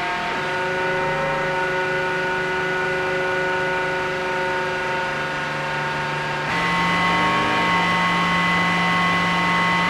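Qun mk2 handheld synthesizer playing a steady drone of several held tones over a hissy noise bed. The pitches shift about half a second in and again about six and a half seconds in, where it gets slightly louder, as its parameters are adjusted.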